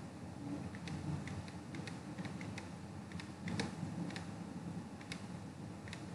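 Light, irregular clicks and taps from a computer input device as handwriting is drawn stroke by stroke on a digital whiteboard, over a faint low room hum.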